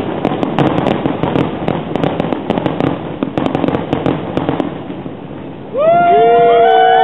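Aerial fireworks bursting and crackling in quick succession, dying away about five seconds in. Near the end, several horns from boats in the marina start up together at different pitches and hold, louder than the fireworks.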